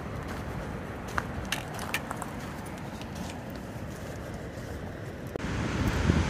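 Wind rumbling on the microphone during a walk on a rough trail, with scattered light clicks and taps of footsteps and gear. About five seconds in, it gives way to louder, fuller wind and surf noise from waves breaking on a rocky shore.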